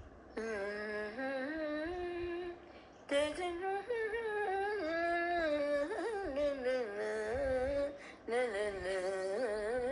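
A woman humming an unaccompanied melodic opening in raga Mohanam. She sings three long phrases with ornamental pitch bends, taking short breaths between them.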